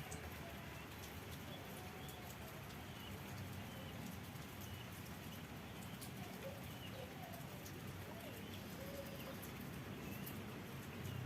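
Quiet rural outdoor ambience under a threatening sky: a steady low hiss and rumble with faint, scattered bird calls, some of them soft low cooing notes, and occasional light ticks.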